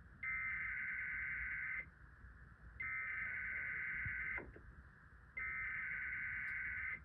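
Emergency Alert System SAME header data bursts sent three times from a Sage EAS encoder/decoder relaying the test. Each is a raspy, warbling digital screech about a second and a half long, with about a second's pause between. They are the coded header that comes before the alert's attention tone.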